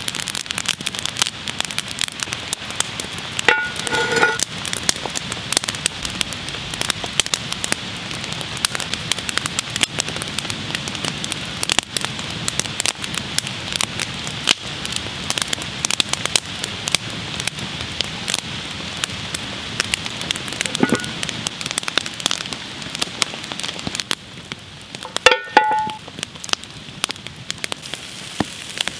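Chopped onions and peppers sizzling in hot fat in a cast iron pot beside a crackling campfire: a dense, even crackle throughout. Two short pitched sounds stand out, about four seconds in and again near the end.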